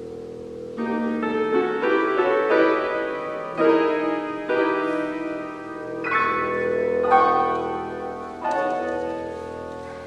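Piano music: slow chords struck one after another, each left to ring and fade.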